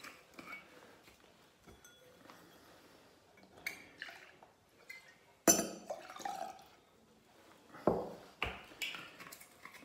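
Cynar liqueur poured from its glass bottle into a metal jigger and tipped into a glass champagne flute, with small clinks of glass and metal. Several sharp knocks and clinks, the loudest about halfway through and two more near the end.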